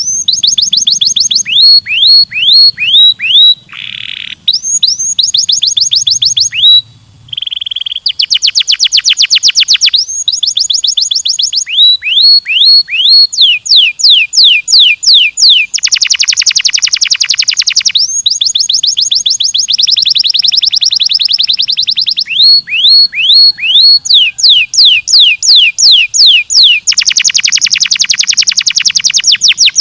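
Domestic canary singing: a fast, rolling song of rapidly repeated sweeping notes that switches to a new trill every second or two, with a few brief pauses.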